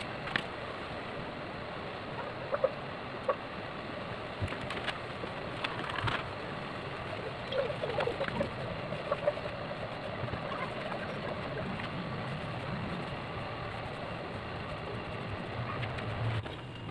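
Light taps, clicks and rubbing from a hand and a small cup of wood finish working over a wooden chair seat, over a steady background hiss; one sharp tap stands out a little over two seconds in.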